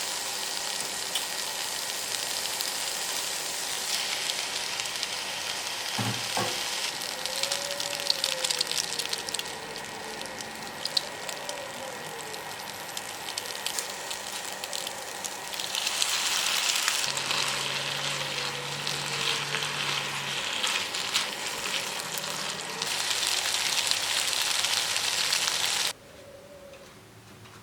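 Food frying in hot oil, a steady sizzle with scattered crackles that grows louder about halfway through and cuts off abruptly near the end.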